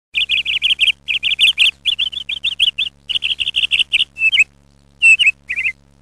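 Lovebird chirping: rapid runs of short, high chirps, about six or seven a second, broken by brief pauses, with a few longer wavering calls near the end.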